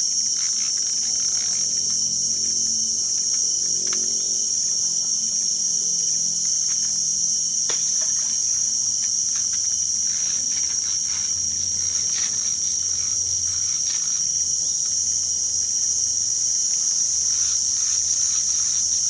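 A steady, high-pitched chorus of insects droning without a break, with a few faint clicks beneath it.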